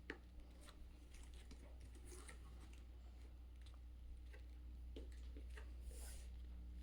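Near silence: faint scattered clicks and light rustling over a low steady hum, with one slightly sharper click just after the start.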